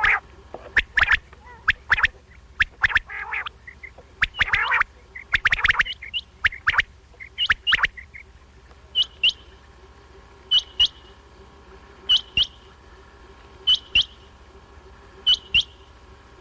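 Quail calling: a jumble of sharp, quick call notes for the first half, then a clipped call of two or three notes repeated about every one and a half seconds.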